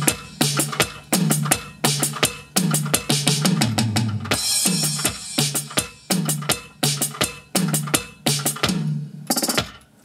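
Roland Octapad SPD-30 electronic percussion pad struck with drumsticks, playing a drum-kit preset for cumbia: a steady groove of kick and snare with drum fills. The groove stops a little before the end.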